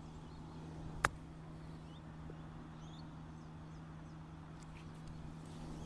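A golf club striking a golf ball once, a single sharp click about a second in. Faint bird chirps and a steady low hum sit underneath.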